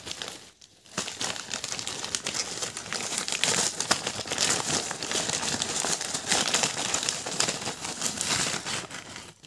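Paper food packet crinkling and rustling as it is shaken and tipped to empty fried sandwiches onto a plate, starting about a second in after a brief lull.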